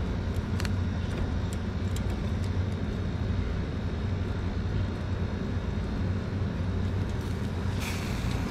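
Metal tongs clicking a few times against bamboo skewers and the wire grate of a charcoal grill, over a steady low rumble and hum. A short hiss comes near the end.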